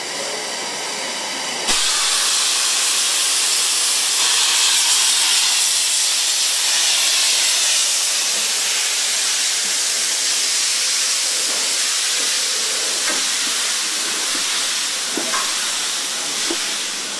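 8620-class steam locomotive No. 58654 pulling out of a station: a loud, steady hiss of venting steam starts suddenly about two seconds in and slowly eases as the engine and its coaches roll past, with a few faint clanks near the end.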